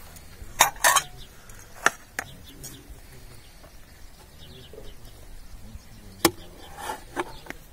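China plates clinking and knocking against each other as they are picked up from a stack and handled. There are a few sharp clinks about a second in, two more around the two-second mark, and another cluster near the end.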